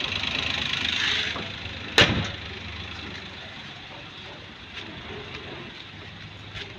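Subaru 660 cc kei car engine idling, with the bonnet slammed shut once about two seconds in; the engine runs on quieter after the bonnet is closed.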